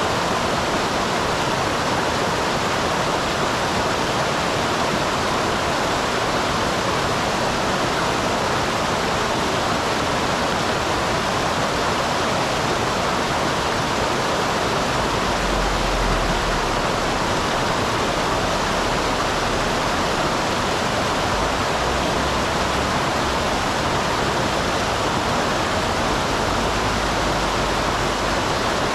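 Mountain stream pouring over a small waterfall: a steady, unbroken rush of falling and splashing water.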